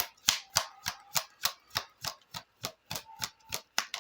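Tarot deck shuffled by hand, the cards slapping together in an even rhythm of about three to four clicks a second, stopping suddenly at the end.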